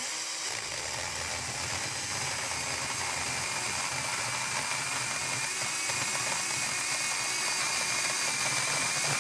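Bosch NanoBlade cordless mini chainsaw cutting through aluminium extrusion: its small chain runs steadily under load with a dense, grinding rattle.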